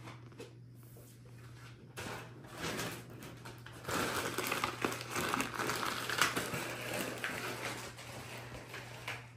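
Thin plastic packaging crinkling and rustling as it is handled, with many small crackles. It starts about two seconds in and grows louder about four seconds in, over a faint steady hum.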